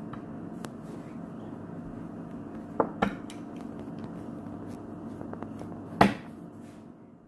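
Steady low room hum with a few sharp clicks and knocks: two about three seconds in and a louder one about six seconds in, from a wooden toy train engine being handled.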